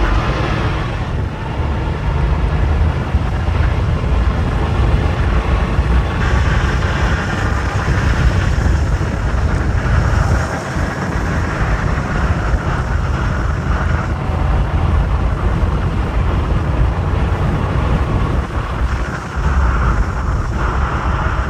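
Porsche 911 Carrera 3.2's air-cooled flat-six engine running at highway cruise, heard from the open cockpit of the cabriolet with steady wind rush and tyre noise over it.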